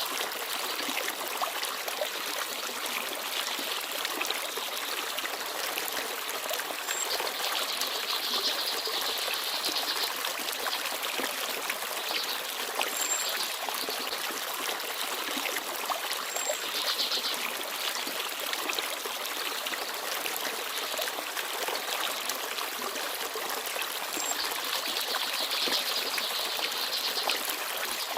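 A small forest stream babbling and trickling steadily over stones, with a few brief, high peeps from small birds now and then.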